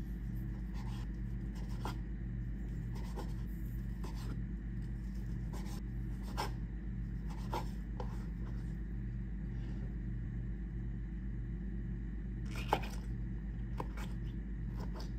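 Chef's knife slicing soft rehydrated shiitake mushrooms on a plastic cutting board: about a dozen light, irregular taps and scrapes of the blade against the board, with one sharper knock about three-quarters of the way through. A steady low hum sits underneath.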